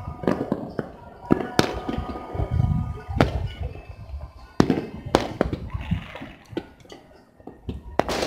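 Fireworks and firecrackers going off across a city: about a dozen sharp bangs at irregular intervals over a low rumble of more distant bursts.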